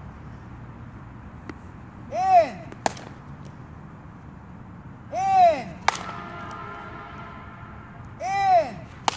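Three swings in batting practice off a tee, about three seconds apart: each a short whistle-like tone rising and then falling in pitch, followed about half a second later by a sharp crack. A faint ringing trails the middle crack.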